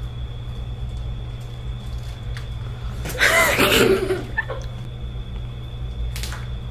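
A brief burst of a girl's high laughter about three seconds in, over a steady low hum.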